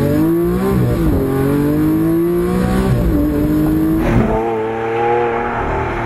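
Lamborghini Aventador LP700-4's V12 accelerating hard through the gears: the engine note climbs, then drops sharply at upshifts about one, three and four seconds in.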